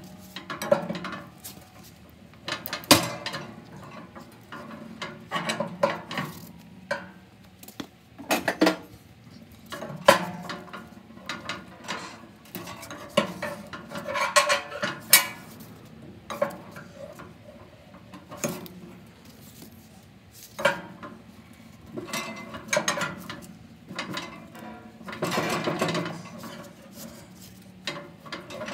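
Heavy steel door of a Gardall depository safe being swung back and forth on its hinges, with repeated, irregular metal clanks and short scrapes.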